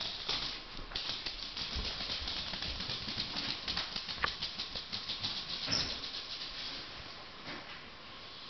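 Soft, rapid rustling and crackling of fabric against a comforter, with one sharper click about four seconds in, thinning out after about seven seconds.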